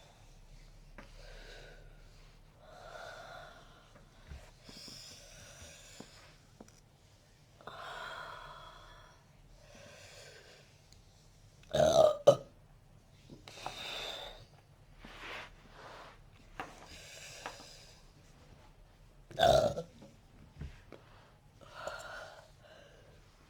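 A person burping loudly: two burps close together about halfway through and another a few seconds later, with audible breathing in between.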